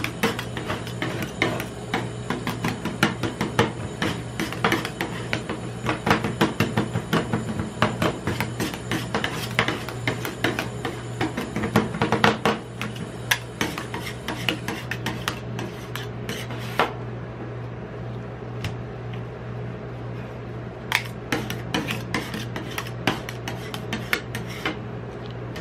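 Two metal spatulas chopping and scraping ice cream and KitKat pieces on a steel cold plate: rapid clicks and scrapes, thinning out about two thirds of the way through, over a steady low hum.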